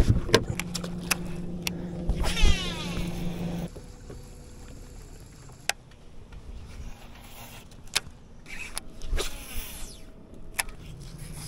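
Baitcasting reel casts: the spool whine falls in pitch as the line pays out, once about two seconds in and again, fainter, about nine seconds in, with sharp clicks from the reel and handling. A steady electric motor hum runs under the first few seconds and cuts off suddenly.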